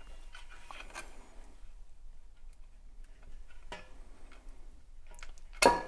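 Sparse faint clicks and taps of hands working on the partly assembled switch housing as it is pried apart, with one sharp knock near the end.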